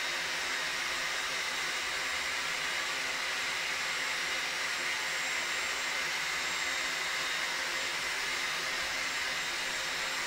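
Steady rushing whir of a small electric blower motor, with a faint high whine running through it.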